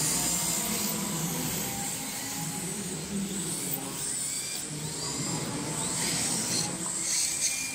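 Several electric RC drift cars running on a smooth indoor track, their motors whining and gliding up and down in pitch as they throttle through the slides.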